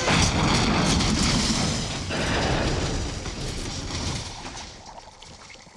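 A Freightliner truck crashing down into a concrete flood channel: a heavy crash of metal at the start and a second loud impact about two seconds in. The noise then dies away to a low level.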